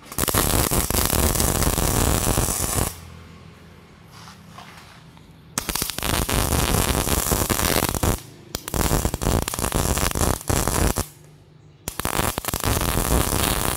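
MIG 250 welder arc crackling as it lays welds on a steel box-tube frame, in four runs of a few seconds each. A low hum fills the short pauses between runs.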